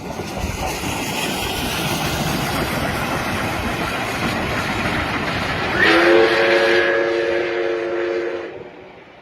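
A train passing close by with a steady rushing rumble of wheels on rail. About six seconds in it sounds a loud, steady three-note chime blast, and the whole sound cuts off abruptly near the end.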